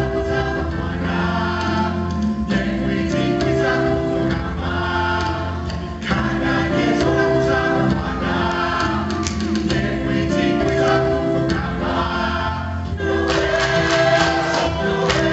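A mixed choir singing a song in harmony, holding notes that change every second or so, with hand drums beating underneath.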